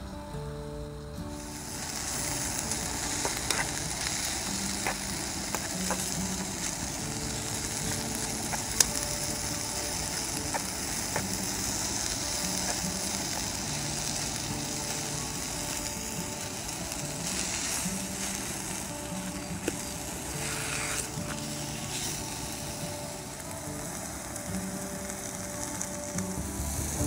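Steak and red onions sizzling steadily in a frying pan, with scattered sharp spits and clicks. The sizzle sets in about a second in.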